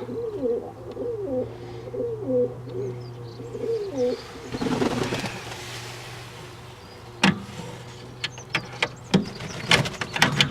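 Domestic fancy pigeons cooing, one call after another for the first four seconds or so, over a steady low hum. Several sharp clicks or knocks follow in the last few seconds.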